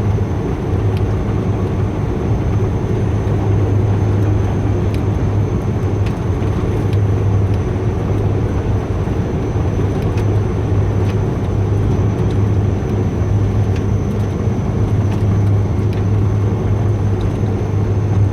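Steady drone of a Dash 8 Q400's turboprop engines and six-bladed propellers, heard from inside the aircraft on final approach. It is a strong low hum over a rumble of engine and airflow noise, with a thin high whine and a few faint clicks.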